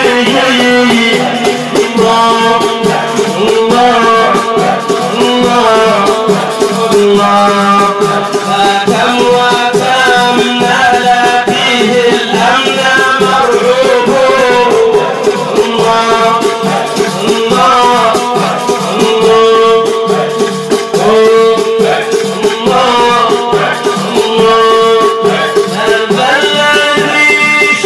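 Egyptian Sufi inshad music: a stepping melody line over fast, busy jingling percussion, in what sounds like an instrumental passage between sung verses.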